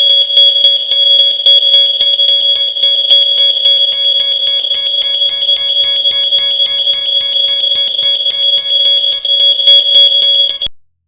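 BMC 500 smoking-detection alarm sounding: a loud, high-pitched steady tone with rapid pulsing, signalling that it has detected smoke. It cuts off suddenly near the end.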